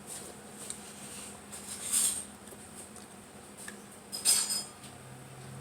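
Cutlery clinking and scraping against a plate during a meal, in two short bursts about two seconds apart, the second the louder.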